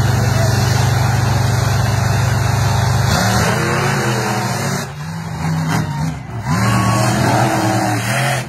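Monster truck engines running loud: a steady held drone for the first three seconds, then revving up and down again and again as the trucks race.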